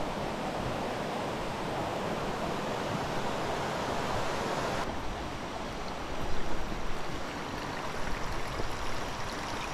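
Ocean surf: a steady rush of breaking waves. The sound changes abruptly about five seconds in, then swells and eases irregularly.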